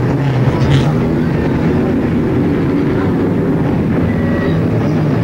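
A pack of mini stock race cars running together around the oval at pace-lap speed, their engines blending into one steady sound.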